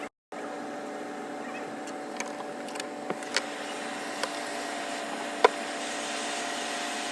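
Steady whir of a small fan motor, as from a microsoldering bench's hot-air station or fume extractor, with a few light clicks and taps, the sharpest about five and a half seconds in.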